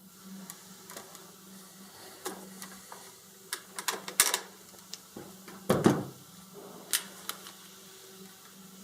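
Scattered small clicks and taps of metal screws, hex tool and plastic parts being handled while button-head screws are fitted to an RC truck's bumper brace, the loudest knock a little before the halfway point, over a faint low steady hum.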